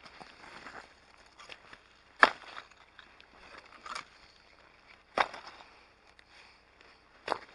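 Chunks of broken stone and brick rubble clacking against each other as they are moved by hand and tossed aside among dry leaves, which rustle. There are four sharp clacks, the loudest about two seconds in.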